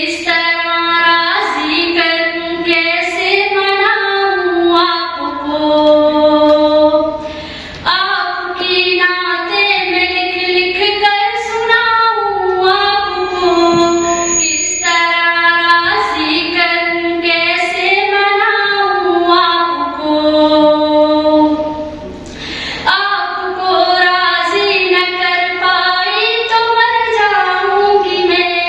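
A young female voice reciting a naat, a devotional song in praise of the Prophet, sung solo without instruments in long, held, ornamented melodic phrases. It breaks off briefly about 8 and 22 seconds in.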